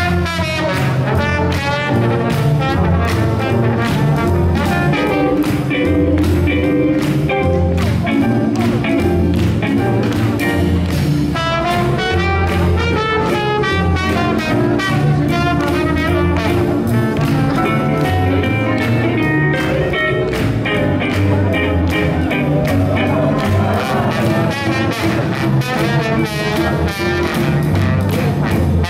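Swing jazz music with a steady beat and a moving bass line.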